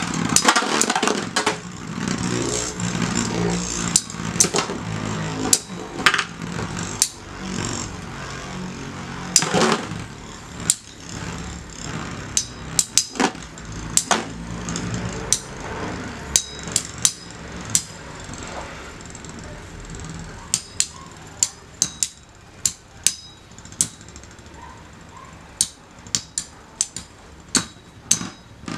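Two Metal Fight Beyblade spinning tops, Lightning L-Drago and Aquario, whirring in a stadium and clashing again and again with sharp metal clacks. The whir is strong for about the first half and then fades as the tops slow, while the hits go on as scattered clacks.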